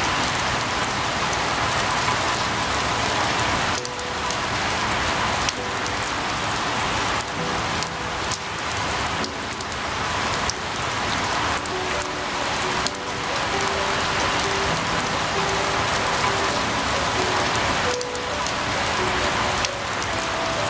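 Steady, dense rainfall hissing. Faint held musical notes change slowly underneath.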